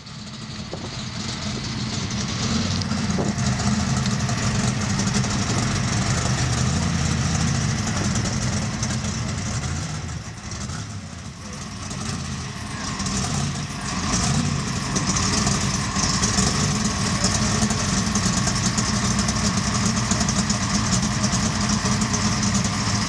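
Engine of a customised early-1950s Chevrolet pickup hot rod with a large hood scoop, idling with a steady low rumble. It fades in over the first couple of seconds and dips briefly about halfway through.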